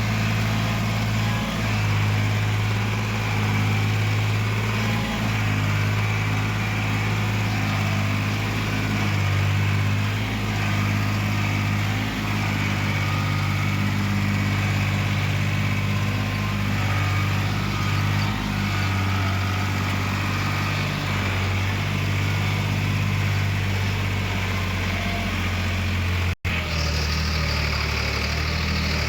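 A heavy machine's diesel engine runs steadily with a low, even note. About 26 s in, the sound drops out for an instant at a cut, and a slightly different engine note follows.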